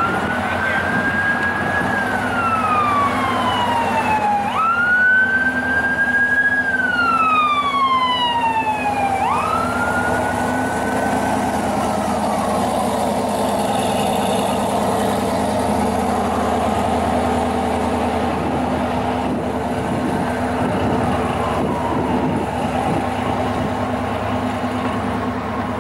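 A siren wailing: each cycle jumps up quickly, holds, then falls slowly, about every four to five seconds, fading out after about twenty seconds. Underneath is a steady engine sound.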